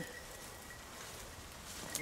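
Faint outdoor background noise with a thin, steady high-pitched tone, and a short click near the end.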